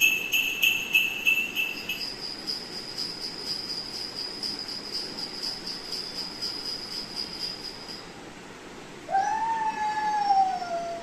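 A high, rapidly pulsing jingling tone that jumps higher about two seconds in and stops about eight seconds in. About nine seconds in, a Labrador puppy gives a drawn-out whining howl that rises and then falls.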